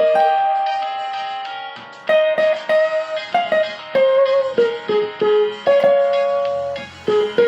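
Cavaquinho picking a hymn melody one note at a time. The opening note rings on and fades for about two seconds, then the tune continues in short plucked notes.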